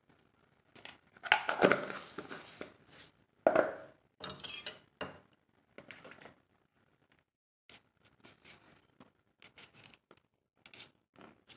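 Kitchen containers and utensils handled on a counter: irregular clatter, scraping and knocks, loudest a little over a second in and again at about three and a half seconds, then smaller clicks.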